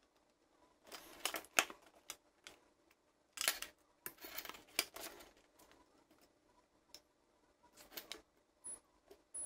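Hands handling an opened plastic toy and multimeter test probes on a tabletop: three clusters of scraping, tapping and clicking as the plastic panel is lifted and turned and the probes are set back on the contacts. Two brief, high-pitched pips come near the end.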